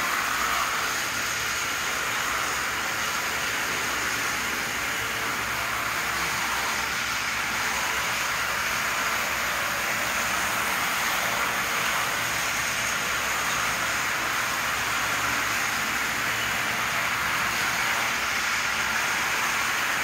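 Model trains running on plastic roadbed track: a steady whir of several powered diesel locomotive motors and the wheels of their cars rolling over the rails.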